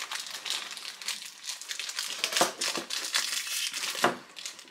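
Crinkly light-blue printed wrapping being crumpled and handled close to the microphone: irregular rustles and crackles.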